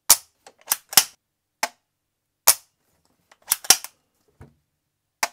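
A B&T GHM9 pistol-caliber carbine being handled: about eight sharp clicks and clacks at uneven intervals, several close together around one second and again around three and a half seconds in.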